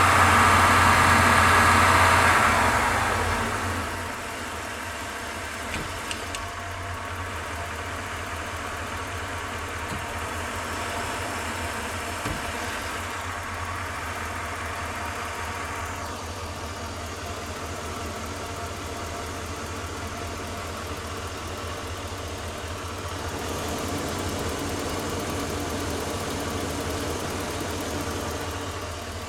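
Van engine heard from inside the closed cabin, louder for the first few seconds, then settling to a steady idle about three seconds in, with a slight swell in level near the end. The owner asks whether its running sounds like a misfire.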